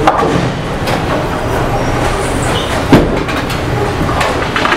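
Bowling alley din: bowling balls rumbling down the lanes and pins clattering. There is one loud sharp knock about three seconds in.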